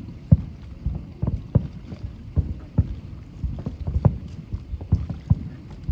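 Aerial fireworks bursting in a rapid barrage: irregular deep booms, about three a second, some louder than others.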